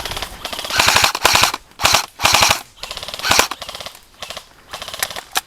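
Airsoft electric guns firing rapid full-auto bursts, four or so volleys of quick shots, then a few single shots near the end.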